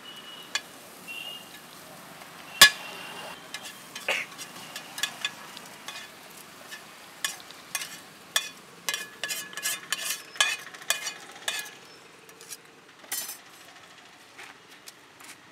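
Metal spatula scraping and clacking against a black iron pan as tapioca and meat are stirred and scooped, over a low frying sizzle. One loud clack comes about two and a half seconds in, and the strokes come thick and fast in the middle before thinning out.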